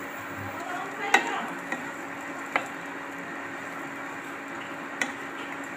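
Sliced onions and ground spices sizzling in oil in a nonstick wok while a spatula stirs them. Four sharp knocks of the spatula against the pan, the loudest about a second in.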